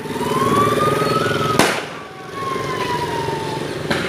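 Motorcycle engines running, with a whine that rises for about a second and a half and then slowly falls. Two sharp cracks come through, one midway and one near the end.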